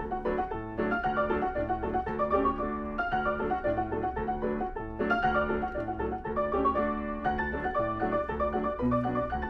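Player piano playing a perforated paper music roll: a lively dance tune with bass notes and chords alternating in a steady beat.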